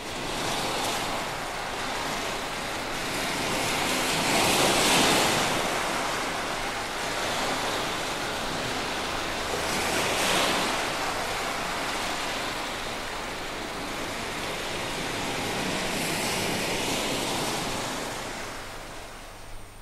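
Sea surf washing in and drawing back, swelling to a peak about every five or six seconds, over a faint steady low hum.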